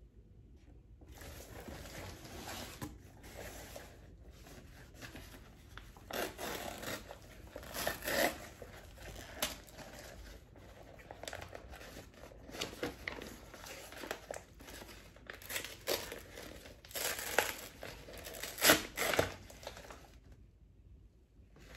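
Brown kraft packing paper rustling and crumpling in irregular bursts as it is pulled open from around a potted plant, the loudest bursts a few seconds before the end.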